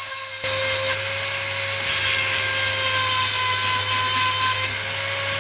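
Dremel rotary tool sharpening a chainsaw chain: the small motor runs at a steady high pitch, and from about half a second in it gets louder and rougher as the grinding stone bears on a cutter.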